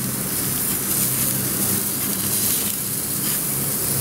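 Flank steak sizzling on the hot grates of a gas grill, a steady hiss with a low hum underneath.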